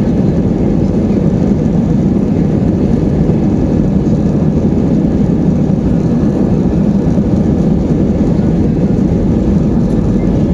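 Airbus A320 jet engines running with a steady, even low rumble.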